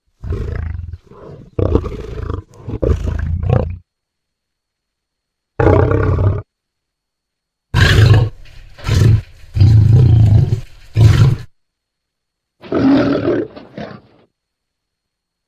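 Film sound effect of the tyrannosaur Sharptooth roaring: a string of separate roars and growls broken by moments of silence, the longest and loudest roar in the middle.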